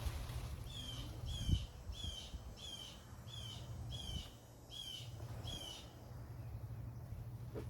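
A songbird repeats a short down-slurred call eight times in a steady series, about one every 0.7 seconds, then stops. Under it runs a low rumble, with a single thump about a second and a half in.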